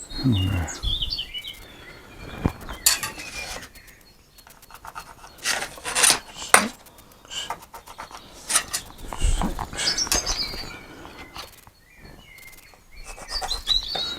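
Scattered knocks and clatters of tools and boards being handled on a workbench, with short bird chirps now and then.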